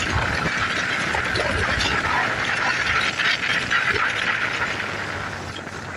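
Steady rushing hiss of wind and road noise from riding a Bajaj Pulsar NS125 motorcycle, easing slightly near the end.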